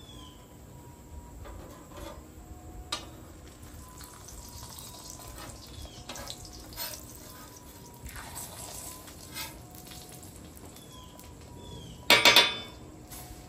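A tortilla frying in bacon grease on a steel flat-top griddle, with a soft, steady sizzle. A metal spatula ticks now and then against the griddle and gives one louder scrape near the end.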